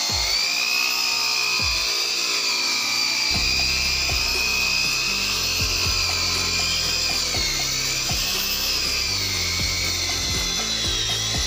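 Electric rotary car polisher whining steadily as it buffs a car's paintwork, its pitch wavering and dipping now and then. Background music with a beat plays underneath.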